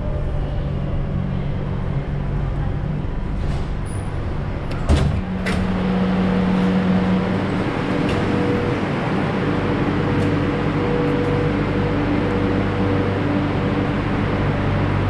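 Madrid Metro Line 10 train running: a steady rumble and hiss with electric motor hum tones that shift in pitch a few seconds in. A single sharp knock sounds about five seconds in.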